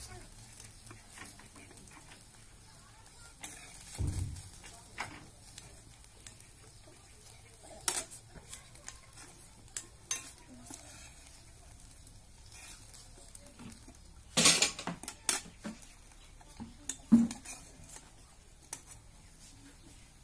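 Metal spatula clinking and scraping against a wok and a bowl as fried pieces are scooped out and transferred. The clinks are sparse and scattered, with the loudest cluster about two-thirds of the way through.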